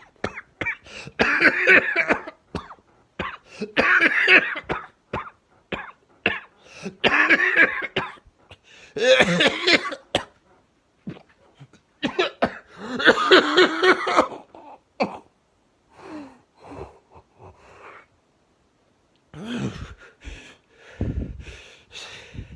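A man sick with Covid-19 coughing in harsh, strained fits: about five loud, drawn-out coughs in the first fifteen seconds, then shorter, weaker ones. This is the laboured coughing of a man at the peak of the infection who can barely breathe.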